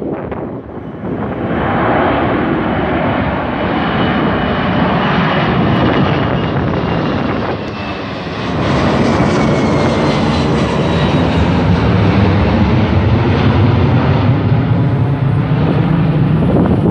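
Twin jet engines of a Boeing 767-300 at takeoff power, climbing overhead: a loud jet rush with a faint whine that slides down in pitch as it passes. About eight seconds in the sound turns to a heavier, deeper rumble as the jet moves away.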